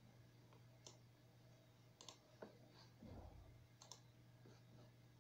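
Faint computer mouse clicks: several single sharp clicks, irregular and a second or so apart, over a low steady electrical hum. A soft low rumble comes about three seconds in.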